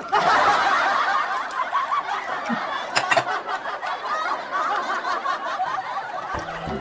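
Snickering, giggling laughter from several overlapping voices, steady and dense throughout.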